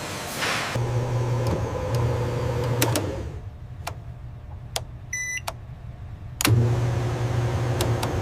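Steady low machinery hum that drops away for a few seconds in the middle and then comes back abruptly, with a few sharp clicks and a brief series of electronic beeps during the quieter stretch.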